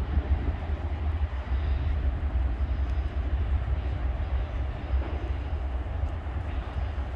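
The tail of a Norfolk Southern manifest freight train rolling away down the main line, a steady low rumble of wheels on rail.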